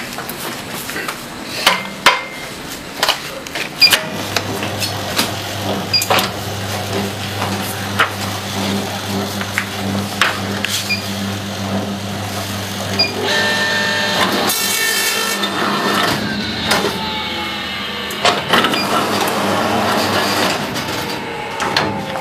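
Book binding machine running: a steady low motor hum that sets in about four seconds in, with repeated sharp mechanical clicks and knocks. There is a louder rushing, clattering stretch about two-thirds of the way through.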